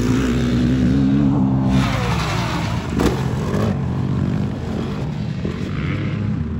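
Motocross dirt bike and quad (ATV) engines revving as they ride the track, the pitch rising and falling with the throttle.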